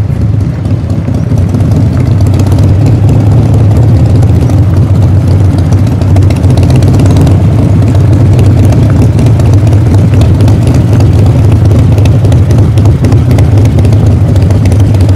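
Harley-Davidson V-twin cruiser engine running steadily and loudly at low revs while the motorcycle rolls slowly.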